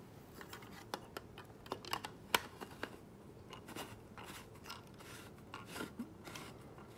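Faint scattered clicks, taps and scrapes of hands handling a plastic angle-head flashlight, with one sharper click a little over two seconds in.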